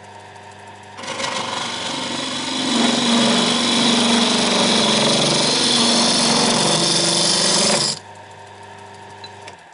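Wood lathe running, with a turning tool cutting into the spinning wood blank to hollow out a hemisphere. A loud rough cutting noise starts about a second in and stops near the end, leaving the steady motor hum, which then cuts out.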